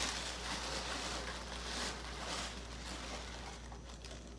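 Tissue paper rustling and crinkling as a gift is pulled out of a small cardboard box, busiest in the first couple of seconds and then quieter.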